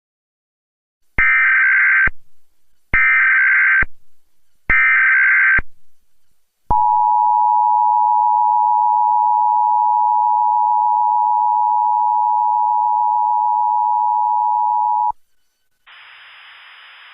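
Emergency Alert System tones: three one-second bursts of the digital SAME header, then the two-tone attention signal, a steady dual-pitched tone held about eight seconds before cutting off abruptly. A faint steady hiss starts near the end.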